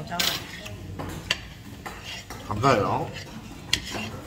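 Stainless-steel chopsticks clinking and scraping against dishes as food is stirred and picked up, with a few sharp clicks. About two-thirds of the way through comes a brief voice-like sound, the loudest moment.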